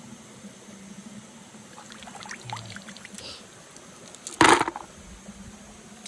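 A hand sloshing and splashing in shallow stream water while groping under leaves for snails. There is a run of small splashes around two to three seconds in, then one loud splash about four and a half seconds in.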